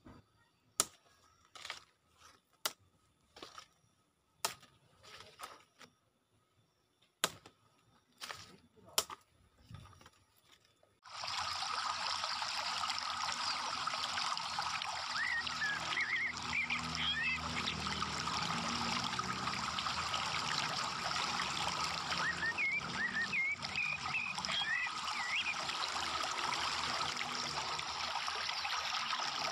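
About nine sharp snaps over the first ten seconds, like leaf stalks being broken off a woody plant stem by hand. About eleven seconds in, a steady rush of water sloshing and splashing in a plastic tub, with a few faint chirps.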